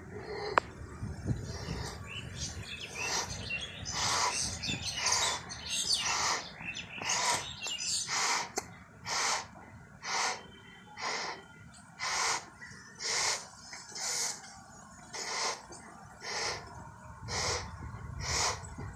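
A latex balloon being blown up by mouth: repeated puffs of breath into the balloon, about one a second, most regular in the second half as the balloon nears full size. A single sharp click about half a second in.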